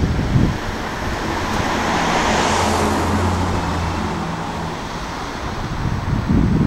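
A road vehicle passing by: engine hum and tyre noise swell to a peak two to three seconds in, then fade away. Wind buffets the microphone at the start and near the end.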